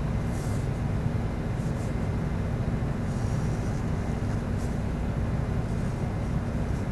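Steady low background rumble, with a few faint scratches of a pen drawing on paper.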